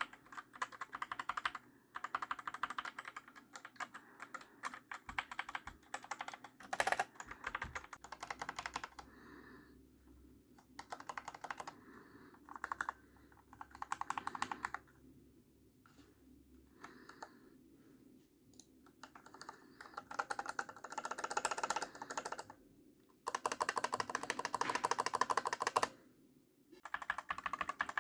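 Typing on a mechanical keyboard with linear red-type switches (Cherry Viola or Outemu Red): fast runs of key clicks and clacks broken by short pauses.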